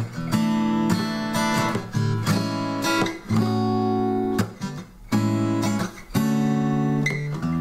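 Fender DG60CE acoustic guitar, freshly strung with Ernie Ball Earthwood bronze alloy extra light (10–50) strings, strummed unplugged through a chord progression, the chord changing every second or so.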